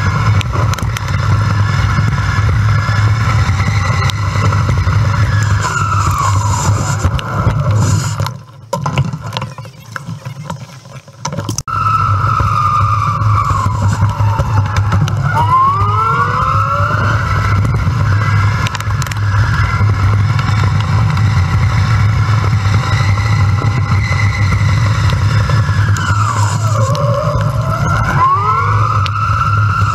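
Wind rumbling on a bike-mounted GoPro microphone while riding a Pedego electric bike, with a whine from the electric motor that rises and falls in pitch as the bike speeds up and slows down. The audio is sped up fourfold. The wind rumble drops away for about three seconds around a third of the way in, then comes back.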